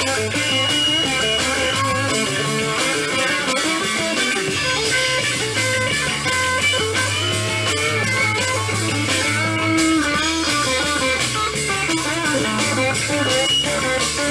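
Blues-rock band playing an instrumental break: electric guitar picking out notes over a steady bass guitar line, with no vocals.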